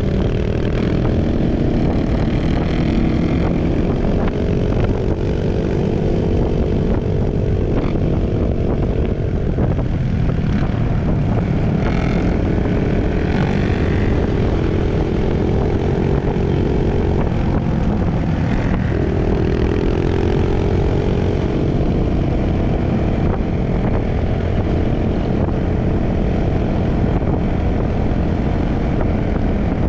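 Trail motorcycle engine running while riding, its note drifting slowly up and down with the throttle, with a couple of short breaks in pitch in the second half.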